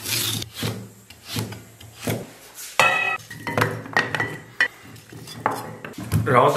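Chinese cleaver chopping a carrot on a wooden stump chopping block, a few sharp knocks about a second apart. About three seconds in, the cut carrot sticks are swept off the block into a stainless steel bowl, which rings with a metallic tone and rattles.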